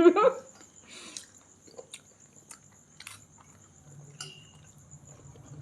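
A person chewing dry biscuits: a handful of short, scattered crunches and mouth clicks.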